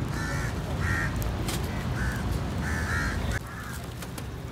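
Crows cawing, a string of short harsh calls repeated several times, over a low background rumble that drops off about three seconds in.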